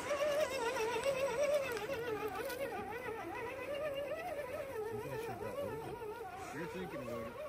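Small electric motor of a radio-controlled scale crawler truck whining steadily, its pitch wavering up and down continuously as it crawls.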